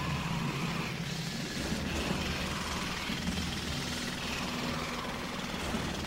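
Jackhammer running continuously, a rapid, steady hammering with a low rumble.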